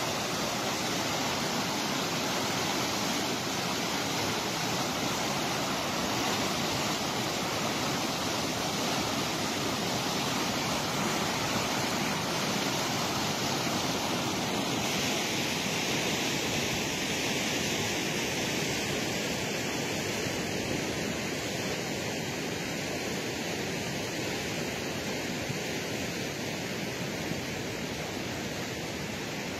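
The Bregalnica river in flood after heavy rain, its swollen water rushing past as a steady, even noise. The tone turns a little brighter about halfway through.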